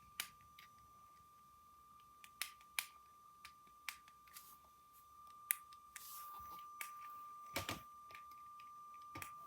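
Battery-powered LEGO City Express Passenger Train running on plastic track: a faint, steady high-pitched whine with a dozen or so sharp, irregular clicks.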